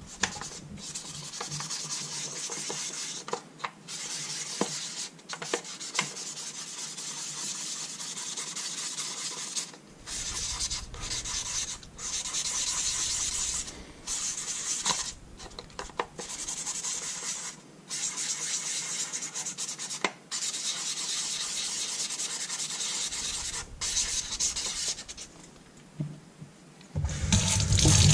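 Fine 1200-grit wet sandpaper rubbing back and forth over the face of a weathered solar-lamp panel, sanding away its clouded surface in stretches broken by short pauses. About a second before the end the kitchen tap comes on, and water runs over the panel.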